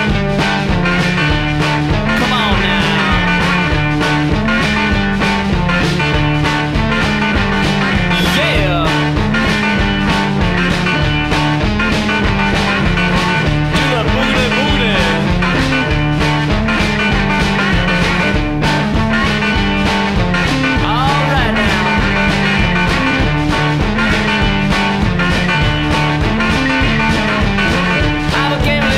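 Background music with a steady drum beat and a stepping bass line.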